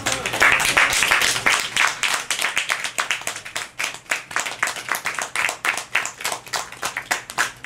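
Audience clapping: a dense, irregular run of handclaps.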